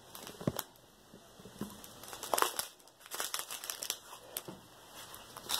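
Small clear plastic bags of diamond-painting drills crinkling as they are handled, in scattered short bouts.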